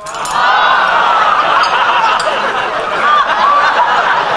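Studio audience laughing, building up within the first second and holding loud.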